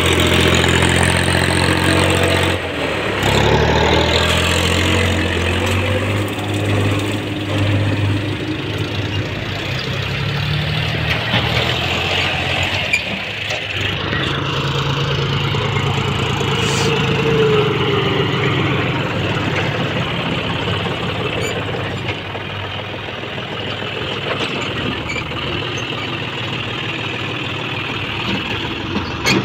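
Diesel tractor engines working under load as they haul trolleys of dug earth. The engine note rises and falls. At first it is a Massey Ferguson 7250 DI, and near the end a John Deere 5105 runs close by.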